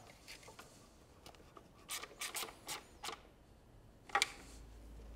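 Faint clicks, taps and rubbing as gloved hands handle and fit plastic intake parts in a car engine bay, with a sharper click about four seconds in, after which a low steady hum sets in.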